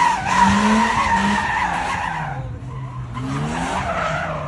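A car's tyres squealing in a skid while its engine revs up and down. The squeal fades out about halfway through and the engine keeps running, the sound of a driver losing control.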